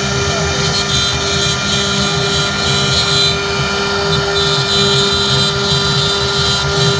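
CNC router spindle running at a steady high speed while carving teak, a constant whine with cutting noise.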